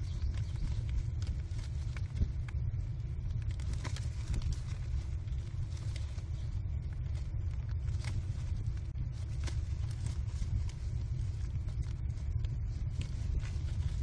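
Steady low rumble on the nest-box microphone, with scattered scratches, scuffs and wing rustles as American kestrel nestlings scramble and mantle over prey on the wood-chip floor.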